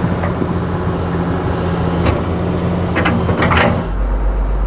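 Hydraulic excavator's diesel engine running steadily, with a few sharp knocks. The engine note drops lower near the end.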